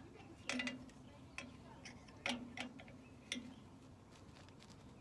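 A handful of sharp metallic clicks and taps at irregular intervals, the loudest three about a second apart: a wrench working at a tight brake bleeder screw.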